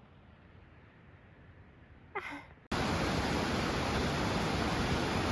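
Quiet for about two and a half seconds with a short vocal sound near the middle, then a sudden cut to a loud, steady rushing noise, like wind or a nearby river.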